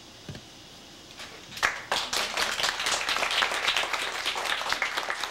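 Audience applauding: many hands clapping, starting about a second and a half in.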